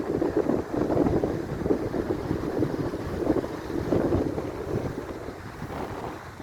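Wind buffeting the microphone in gusts: a noisy rush that swells and fades about once a second and eases slightly near the end.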